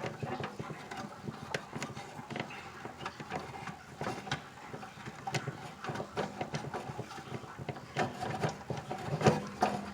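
Irregular small clicks, taps and rattles of a furnace control board and its plastic mounting clips and wiring being handled as the board is worked loose.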